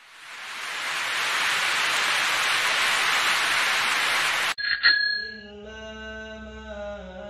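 Edited channel-intro sound effects: a rushing noise swells up and holds for about four and a half seconds, then cuts off suddenly. A bright bell ding follows, then held, sustained music chords.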